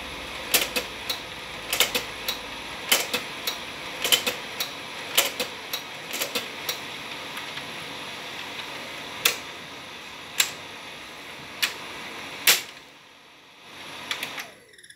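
Kodak Ektapro 3000 slide projector running with its cooling fan going steadily, while its push-buttons and mechanism click repeatedly, several clicks a second at first and then singly about a second apart. Near the end a loud click comes and the fan noise stops.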